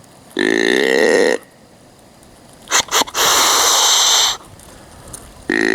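Whitetail deer grunt call blown once, a deep grunt about a second long, then a snort-wheeze made by the hunter: two short sharp puffs followed by a long hiss of about a second. A second grunt starts near the end. The calls imitate a rutting buck challenging another buck, to draw a buck in.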